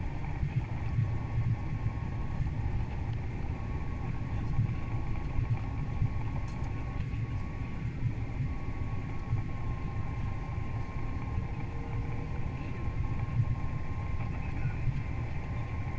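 Steady cabin noise inside an Airbus A330 airliner descending on approach: a low rumble of airflow and the turbofan engines, with a faint steady whine.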